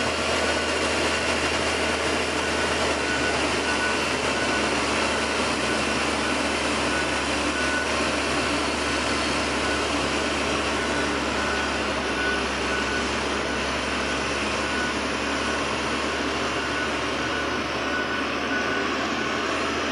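XCMG motor grader's diesel engine running steadily as the machine backs away, with its reversing alarm beeping in an even rhythm over the engine noise.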